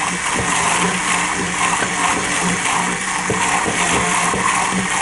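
Handheld immersion blender running in a glass mason jar, churning a thick ceramic glaze slurry as added water is worked in; a steady motor hum under the noise of the blade.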